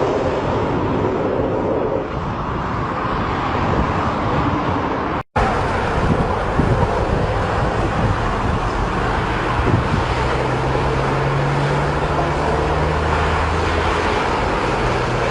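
Jet engine noise from low-flying fighter aircraft, a loud steady rush with wind on the microphone. About five seconds in it cuts off for an instant and resumes as another recording of steady jet noise with a low hum.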